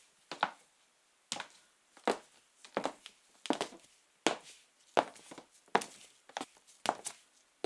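High-heeled sandals tapping on the floor in slow, even walking steps, about ten steps with each one a quick double tap of heel and sole.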